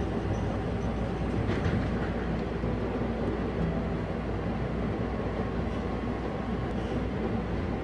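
Toronto Rocket subway train running, a steady low rumble heard from inside the passenger car.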